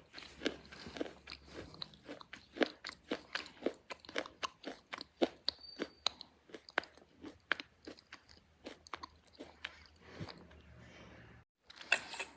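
A1-brand slate pencil being bitten and chewed close to the microphone: a quick run of sharp, brittle crunches, about three a second, thinning out in the last couple of seconds, with one louder crunch just before the end.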